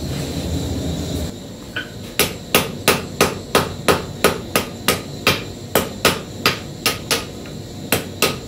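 Hand hammer striking a red-hot steel hammer head on an anvil, about three blows a second with a short break near the end: the finishing blows that dress a flatter being forged from a 2 kg sledge. A steady low rush cuts off about a second in, before the blows begin.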